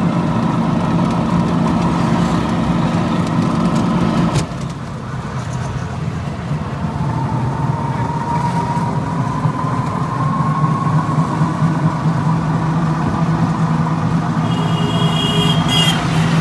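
Motor vehicle engine running steadily while driving, its note dipping about four seconds in, with a whine that slowly rises in pitch partway through and a short higher-pitched sound near the end.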